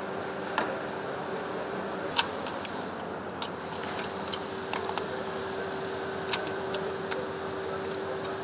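Factory-floor hum with a faint steady tone that drops out briefly about two seconds in. Over it come scattered sharp clicks and taps as gloved hands fit ignition-coil packs and snap their electrical connectors onto the engine.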